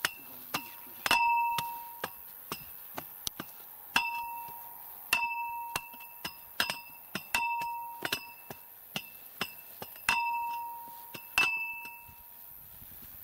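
Hammer and iron bar tamping broken brick and stone around the base of a steel pole being set in the ground. There are irregular sharp knocks, roughly two a second, and many of them leave a short clear metallic ring; the knocking stops near the end.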